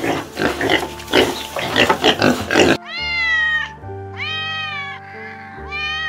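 Piglets squealing in a rapid jumble for the first half, then a cat meowing three times, each call rising and then falling in pitch, all over background music.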